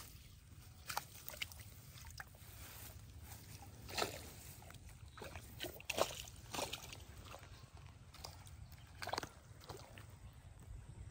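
Scattered soft rustles and clicks of close handling of fishing line and gear, irregular and of differing loudness, over a steady low background rumble.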